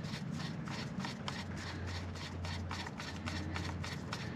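Torx screwdriver turning the small Torx screws into a coil pack: a quick, even run of light clicks, about five a second.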